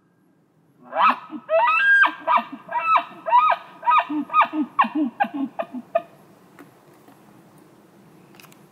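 Bull elk bugling: a rising high squeal followed by a run of short, falling chuckles with low grunts beneath, about two to three a second, dying away after about five seconds.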